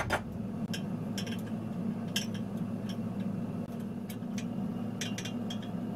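Light, irregular metallic clicks and taps of hand tools and hardware being handled on a metal frame, over a steady low hum. A sharper knock comes right at the start.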